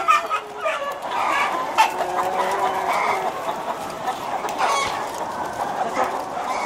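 Many caged laying hens clucking and calling over one another in a steady din, with a couple of sharp clicks.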